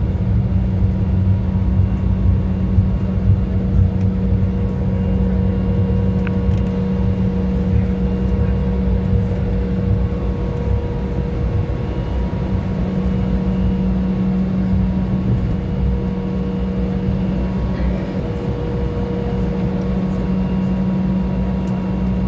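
Jet airliner cabin noise while taxiing after landing: the engines' steady drone at taxi power with a low rumble, heard from inside the cabin, with a few constant tones running through it.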